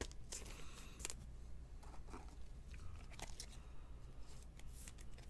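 Faint scraping and rustling of a trading card being handled and slid into a clear plastic holder, in short scratchy strokes with a few light clicks.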